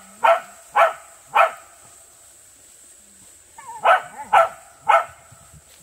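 A dog barking in two runs of three short, sharp barks about half a second apart, with a pause of about two seconds between the runs and a brief whine leading into the second run.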